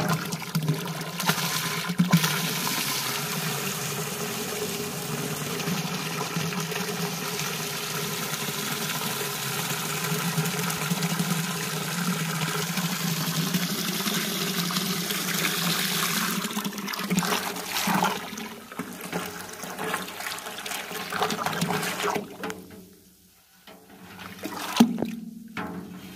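Water swishing and churning in a steel drum as it is stirred with a stick to mix a pesticide spray solution. Steady for most of the time, then quieter and broken up, with a few knocks near the end.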